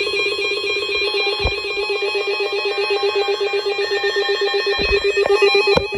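Emergency alert attention tone: a loud, rapidly pulsing alarm that alternates between two pitches, sounding for a severe thunderstorm warning. A few dull knocks sound over it about a second and a half in and again near the end.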